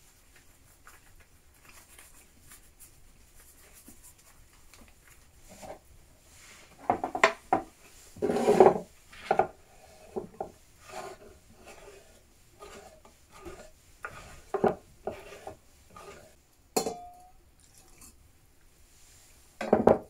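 Earthenware bowls and pots being handled and set down on a wooden table, with food rubbed and crumbled by hand into a clay bowl: scattered knocks, clinks and scrapes. The loudest come in a cluster about seven to nine seconds in. There is a short ringing knock near seventeen seconds and a sharp knock just before the end.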